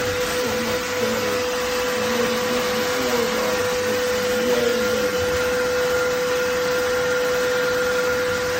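Vacuum cleaner running steadily with a constant whine, sucking lint through a flexible dryer-lint hose attachment.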